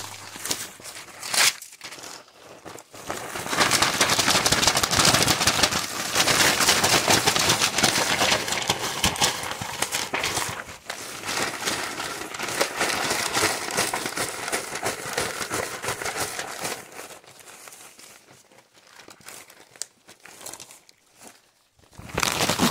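Pages of a paper math workbook being ripped out and crumpled by hand, a dense crinkling and tearing. It is loudest through the first two-thirds, then thins to scattered rustles, with a short loud burst near the end.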